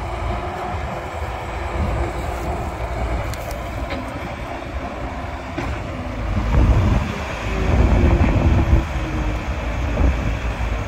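Heavy diesel machinery running: a loaded dump truck stuck in mud and a tracked excavator working beside it. The low engine rumble grows louder about six seconds in.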